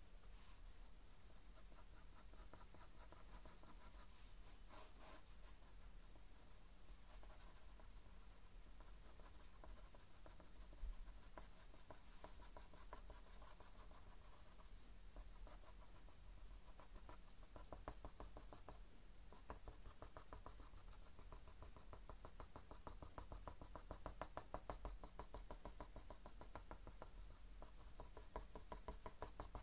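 Faint scratching of a graphite pencil on drawing paper. In the second half it becomes a fast, even run of short hatching strokes, several a second, which grow a little louder near the end.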